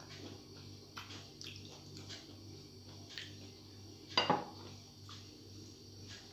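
Eating sounds of rice being mixed and eaten by hand from a plate: scattered light clicks and mouth noises, with one louder clack about four seconds in. A steady low hum runs underneath.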